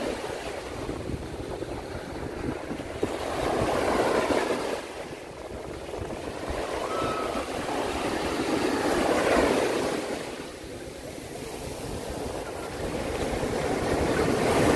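Sea waves breaking and washing up a sandy beach, the surf swelling and falling back about every five seconds.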